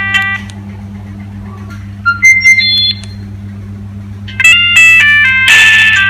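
Built-in ringtones of a Nokia 3530 mobile phone played through its small speaker: one ringtone preview cuts off just after the start, a few short electronic beeps sound about two seconds in, and another ringtone begins about four and a half seconds in as a quick tune of bright electronic notes.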